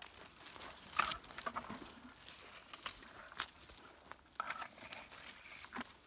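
Branches and leaves rustling and snapping with footsteps as someone pushes through dense fir undergrowth: irregular crackles of twigs and foliage, the loudest about a second in.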